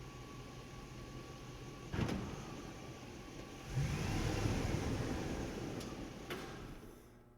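A truck in a parking structure: a steady low engine hum, a sharp knock about two seconds in, then the engine grows louder as the truck drives through with a pitch that rises and falls. Two more light clicks follow, and the sound fades out near the end.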